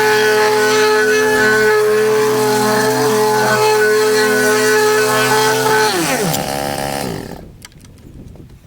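Petrol whacker plate (vibrating plate compactor) engine running steadily at full throttle. About two-thirds of the way through, its pitch falls away as it is shut off, and it stops.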